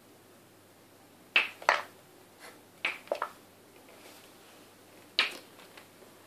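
Mouse-shaped cat toy on a cord clattering against a wooden floor in short, sharp knocks as it moves and is batted: two pairs a second or so apart, then a single knock a couple of seconds later.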